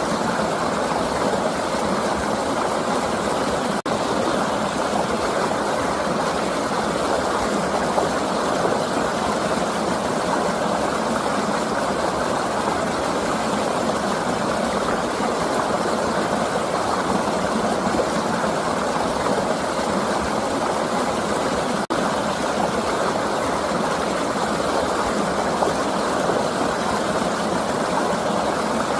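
Flowing river water rushing steadily, a dense unbroken wash of sound that cuts out for an instant twice.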